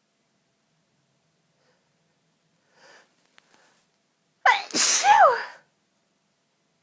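A woman's single violent sneeze about four and a half seconds in: a sharp burst with the pitch sliding down, then a second rise and fall, over in about a second. A faint breath comes a little before it.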